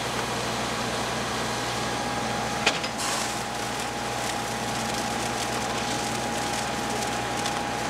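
Fire engine's diesel engine running steadily at pumping speed, a constant drone with a held tone, while it supplies hose lines. A single sharp click comes a little before three seconds in, and a hiss grows louder just after.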